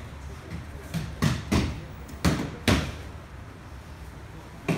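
Aikido breakfalls: bodies hitting the tatami mat and slapping it as attackers are thrown, a series of sharp thuds, about four in the first three seconds and one more near the end.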